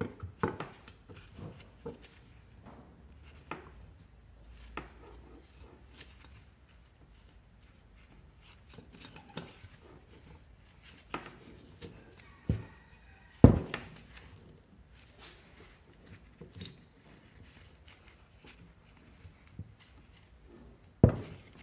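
Scattered light clicks and knocks of metal parts being handled as an ignition stator plate is fitted onto a two-stroke scooter engine's crankcase, with a few louder knocks, the loudest a little past the middle.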